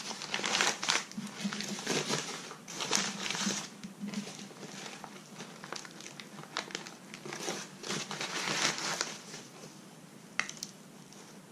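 Newspaper crinkling and rustling as hands pull it open around a heavy object, in irregular bursts that die down after about nine seconds, with one sharp click shortly after.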